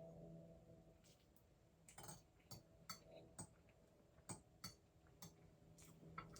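Quiet eating at close range: a scattering of soft, short clicks and taps, about seven of them unevenly spaced from about two seconds in, over a faint steady room hum.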